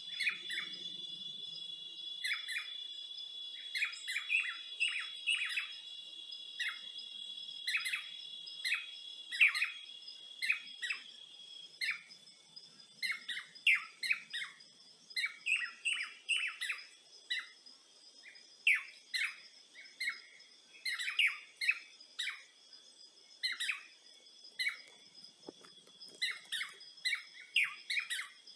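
Songbirds chirping in quick, repeated short notes, one after another, over a steady high-pitched insect drone that grows fainter about twelve seconds in.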